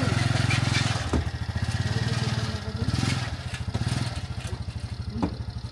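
Honda Cub's small single-cylinder four-stroke engine idling with an even, rapid putter. There is one sharp click near the end.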